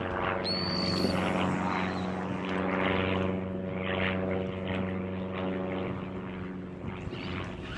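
Electric trolling motor running with a steady low hum, fading near the end.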